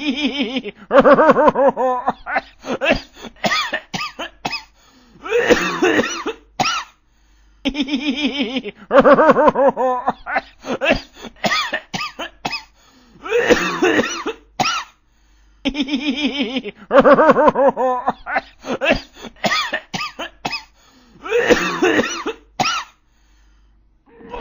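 A person coughing in repeated fits: quick runs of short hacking coughs alternating with longer, voiced, strained coughs. The same pattern of about eight seconds repeats three times.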